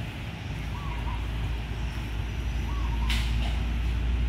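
Low, steady engine rumble of a heavy vehicle nearby, growing louder from about half a second in, with a short hiss about three seconds in.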